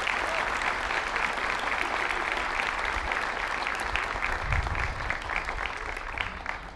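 Audience clapping, a dense round of applause that thins out near the end.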